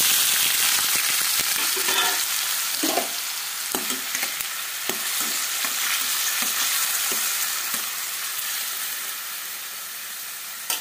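Chopped onions sizzling in hot oil in a stainless-steel kadai, freshly added, the loud hiss slowly dying down. A spatula scrapes and taps against the pan now and then as the onions are stirred.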